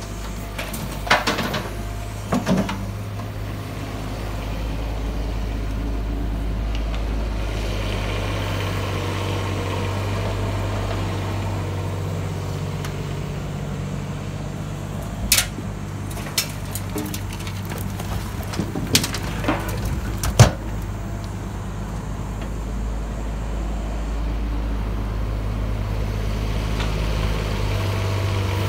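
Bobcat E19 mini excavator's diesel engine running steadily under hydraulic load while digging and loading soil. Sharp metal clanks come near the start, as the bucket tips soil into the steel truck bed, and again in a cluster later on, the loudest about twenty seconds in.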